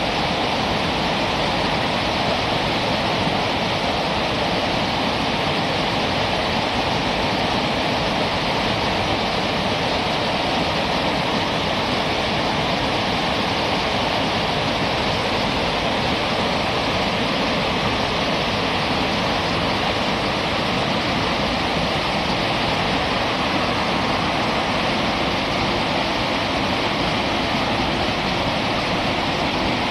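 Whitewater river rapids rushing, a steady loud rush of water.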